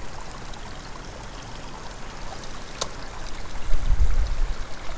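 Wind blowing over the microphone as a steady rushing hiss, with a loud low buffeting gust about four seconds in. A single sharp click just before the gust.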